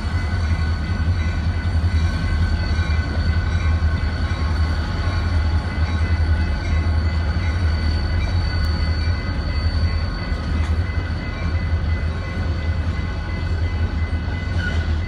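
Wisconsin & Southern train passing close by at a street crossing: a steady, heavy low rumble of the diesel locomotive and rolling cars.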